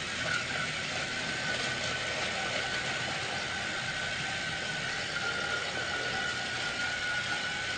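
Small motor running steadily, with a thin high whine over a constant hiss.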